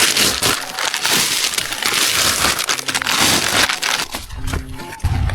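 Spent mushroom-growing logs of packed sawdust being broken and crumbled apart: a dense, crunching crackle for about four seconds that thins out near the end.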